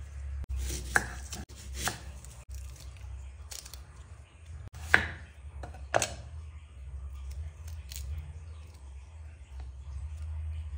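Kitchen knife chopping onion on a wooden chopping board: a few separate sharp chops, the loudest about five seconds in, with fainter taps between, over a steady low hum.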